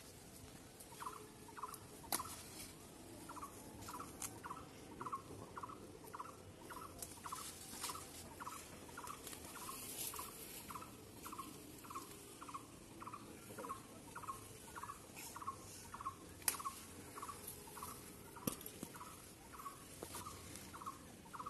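An animal's short call note repeated steadily, about twice a second, with a few sharp clicks.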